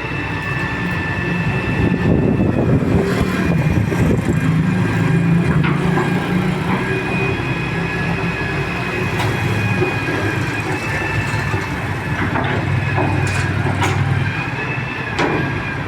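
Heavy-duty excavator's diesel engine running steadily, getting louder about two seconds in, with a steady high whine above it. A few sharp knocks come near the end.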